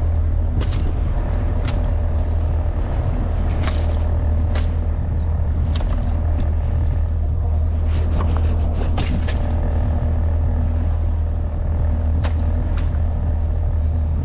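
A boat engine idles steadily, a continuous low hum. Over it come a dozen or so scattered sharp knocks and slaps as mullet are dropped and flop in a fish box.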